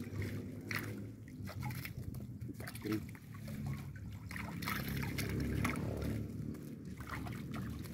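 Water sloshing and splashing, with many short splashes, as a hand scoop net is worked through fish crowded in a net in the water, over a steady low hum.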